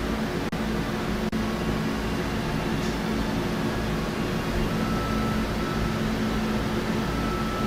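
Steady droning hum and hiss of background noise, cut out for a split second twice within the first second and a half.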